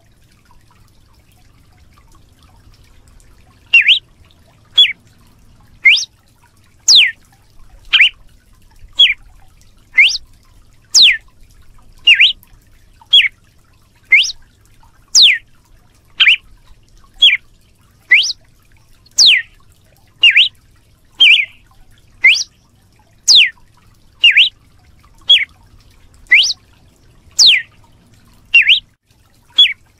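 Red-cowled cardinal (galo de campina) singing its "açoite" (whip) song: a steady series of short, sharp sweeping whistled notes, about one a second, starting a few seconds in.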